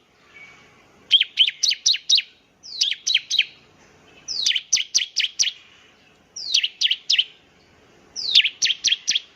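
Bar-winged prinia (ciblek) singing: five quick phrases of three to six sharp notes, each note sweeping steeply down in pitch, with short pauses between phrases.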